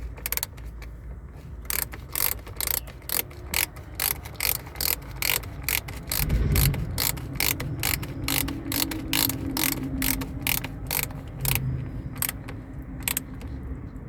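Ratchet wrench clicking steadily, about three clicks a second, as a battery cable terminal nut is tightened, with a dull knock about halfway through.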